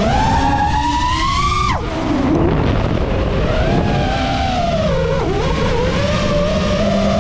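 FPV quadcopter's brushless motors whining, the pitch rising with throttle, dropping sharply about two seconds in, holding steady, dipping around five seconds and climbing again near the end. A rushing air noise runs underneath.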